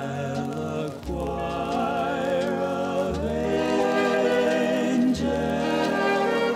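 Background music: long held notes over a low bass that changes about every two seconds.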